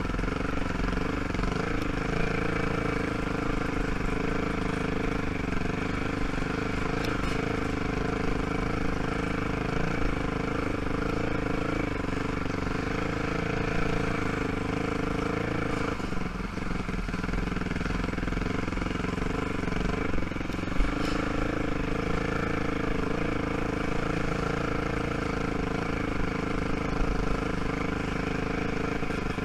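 ATV (quad) engine running at a steady low pace on a dirt trail, easing off briefly a little past halfway, with an occasional sharp knock.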